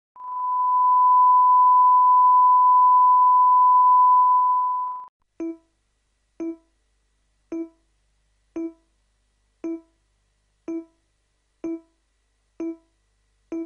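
Videotape line-up test tone, one steady pure tone held for about five seconds, then the countdown leader's beeps: short pitched beeps about once a second, nine in all, one per number of the countdown.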